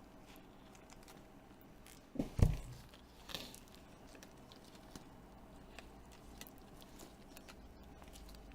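Handling sounds of small tablet parts on a workbench: a heavy thump about two seconds in, a lighter knock a second later, and faint scattered clicks and taps.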